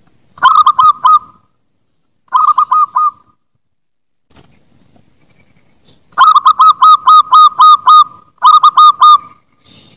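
Zebra dove (perkutut) song: four phrases of quick, repeated cooing notes. Two short phrases come in the first three seconds, then a longer run of about ten notes starts about six seconds in, followed by a shorter phrase.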